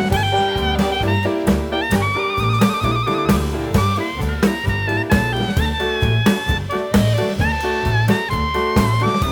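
Background music: upbeat jazz with a saxophone or brass melody over a steady walking bass and drums.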